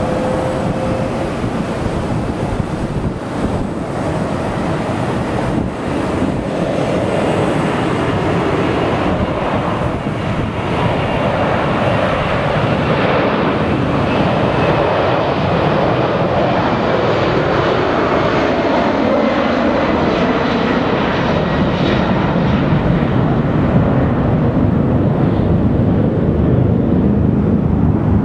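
Boeing 747-400's four Pratt & Whitney turbofan engines at takeoff thrust: loud, steady jet noise through the takeoff roll, liftoff and climb-out, growing slightly louder, with a thin high whine that slowly falls in pitch as the jet passes.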